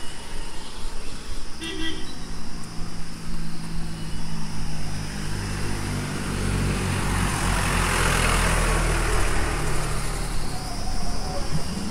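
A bus engine coming up the road and passing close by, loudest about eight seconds in, then fading. A short horn toot sounds about two seconds in.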